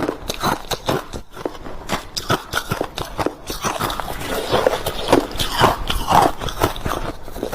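Crushed ice being bitten and chewed close to the microphone: a dense, irregular run of crunches.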